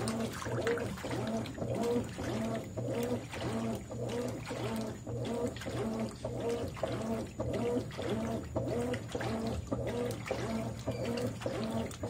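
Consul CWE13AB 13 kg top-load washing machine agitating a tub of water and clothes. The drive whines with each back-and-forth stroke of the agitator, roughly two strokes a second, over a steady low hum and the slosh of water.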